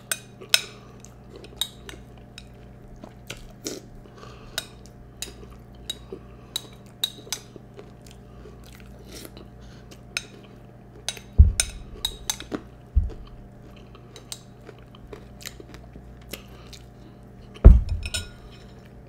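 Close-up crunching and chewing of Peeps marshmallow cereal, with sharp crunches and clicks coming every second or so. A few heavy low thumps stand out, the loudest a little past halfway and again near the end.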